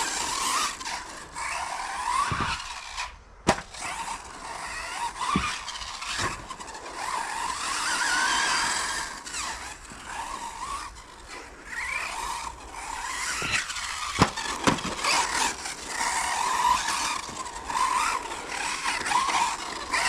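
Hobao Hyper 10 TT 2.0 electric RC truggy's brushless motor whining up and down with the throttle as it laps, its tyres squealing and scrubbing on grippy carpet. A few sharp knocks, once about three and a half seconds in and twice around fourteen seconds.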